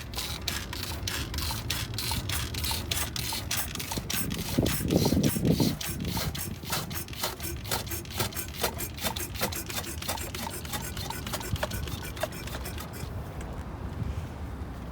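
Simple hand pump being worked rapidly to suck coolant out of a car's coolant expansion tank, a rasping stroke about three to four times a second. About five seconds in there is a louder, lower rush, and near the end the strokes stop.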